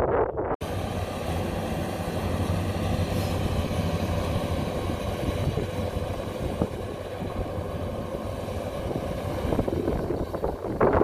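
Kubota DC-93 combine harvester running steadily: an even engine drone with a faint steady whine above it. It starts abruptly about half a second in, after a moment of wind noise on the microphone.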